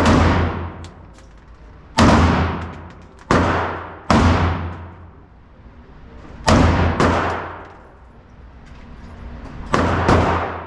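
About seven gunshots at uneven intervals, each sharp crack followed by a long echoing decay: firing on a shooting range.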